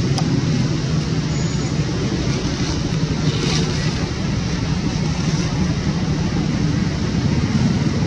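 A motor running steadily, a constant low engine drone with a hiss over it.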